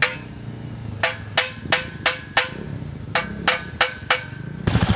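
Hammer blows on the metal handlebar of a Ural motorcycle, each with a short metallic ring: one blow, then five at about three a second, a pause, and four more.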